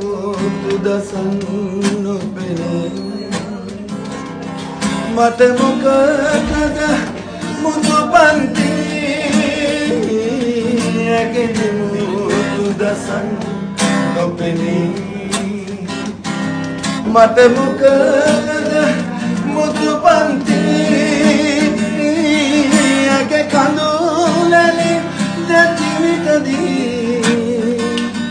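A man singing a Sinhala song live, accompanying himself on a strummed acoustic guitar.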